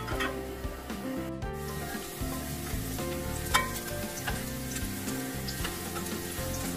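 Garlic and onion sizzling in hot oil in a nonstick pan while a spoon stirs them, with light scrapes and taps of the spoon; one sharp tap a little past halfway stands out.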